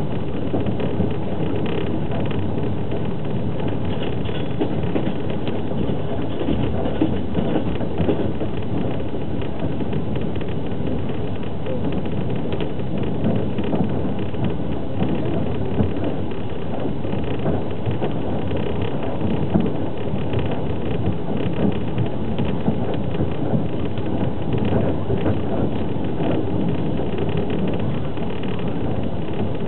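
Steady rumble of a fast passenger train running at speed, wheels on the rails, with a constant stream of small rattles and ticks. Heard inside an open-plan sleeper carriage.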